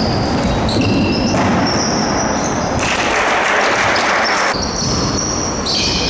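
Basketball game sounds on an indoor wooden court: sneakers squeaking in short high chirps and a basketball bouncing. A rushing noise comes in about three seconds in and fades about a second and a half later.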